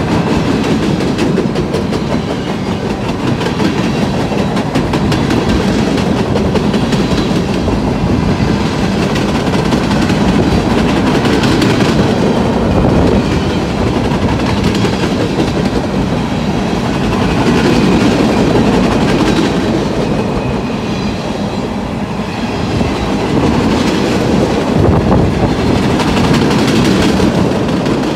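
Freight train cars rolling past with a steady rumble and a constant clickety-clack of wheels on the rails.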